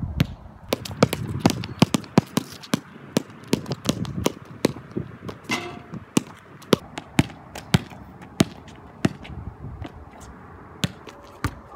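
A basketball bouncing repeatedly on a hard court surface: a run of sharp bounces about two to three a second, thinning out after about nine seconds.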